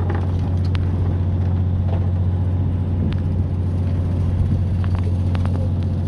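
The fishing boat's engine running with a steady low drone, and a few light clicks and taps scattered over it as line and tackle are hauled in over the gunwale rail.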